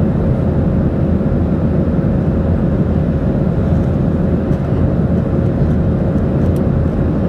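Boeing 737-800 cabin noise in flight: a steady rumble of the CFM56 engines and airflow with a thin steady hum.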